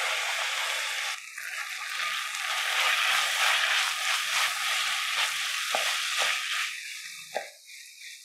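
Julienned vegetables sizzling in hot oil in a pan as a spatula stirs them through schezwan sauce and soy sauce. The sizzle is loudest a few seconds in, with a few sharper clicks near the end before it dies down.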